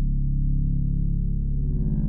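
Slow ambient background music of held low notes, with a new layer of notes coming in near the end.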